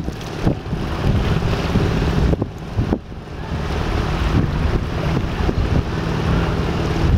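Strong wind buffeting the microphone over rough, choppy river water, with the low steady drone of a boat engine underneath.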